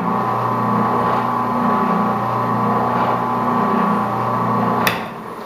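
Craftsman oscillating spindle sander running: a steady, pretty quiet motor hum with an even tone. Near the end a click from the switch and the hum dies away.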